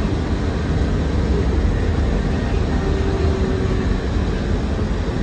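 Steady cabin noise of a KAMAZ-6282 electric bus driving: a low rumble with road and tyre noise from a wet road, with a brief faint tone about three seconds in.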